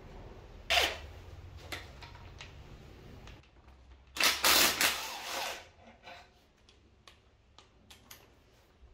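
A cordless impact wrench hammering for about a second to undo an M12 triple-square bolt on the front of the engine. A sharp knock comes earlier, and small clicks of tool and parts handling follow.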